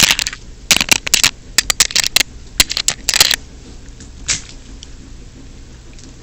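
Homemade cardboard ceiling fan on high, clattering with rapid, irregular sharp knocks for about three and a half seconds over a steady low hum, followed by one more knock. The fan is shaking its brackets loose.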